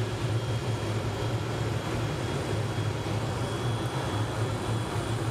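Police helicopter running on the ground before lift-off: a steady low rotor and engine drone with a thin, steady high turbine whine over it.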